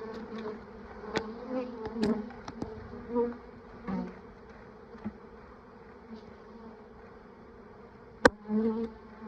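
A package of honeybees buzzing, a steady mass hum, with a few sharp knocks from handling, the loudest near the end.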